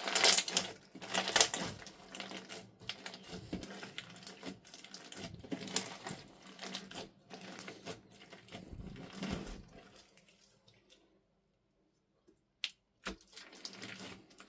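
Clear slime packed with short plastic tube pieces being pressed and kneaded by hand, giving dense wet crackling, clicking and squishing. It dies away about ten seconds in, then comes back near the end as a few sharp clicks and more crackling.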